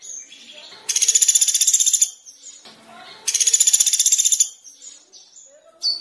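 Small songbirds calling: two loud, high, rapid rattling trills of about a second each, with softer chirps between them and a sharp chirp near the end.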